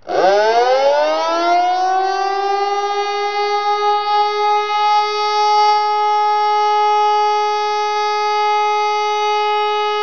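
Pneumatic high-performance civil-defence siren (HLS 573) starting up, its pitch rising quickly over about two seconds and then holding one steady, loud tone: the all-clear (Entwarnung) signal.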